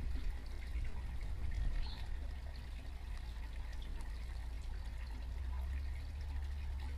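A steady low wind rumble on the microphone under a faint, even hiss, with a couple of faint high chirps.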